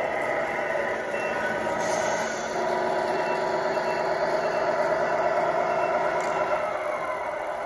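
1/14 Tamiya Grand Hauler RC semi truck's onboard sound unit playing a steady simulated truck engine with repeated high reversing beeps as the truck backs up.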